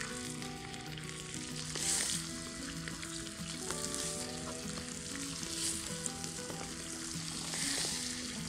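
Skinless chicken thighs sizzling in hot oil in a cast-iron kazan, the sizzle flaring up about four times as each new piece is laid in.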